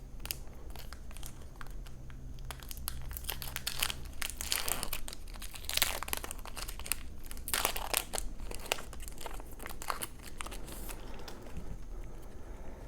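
A trading-card booster pack wrapper crinkling and being torn open: a run of irregular crackles and rustles that thins out after about 11 seconds.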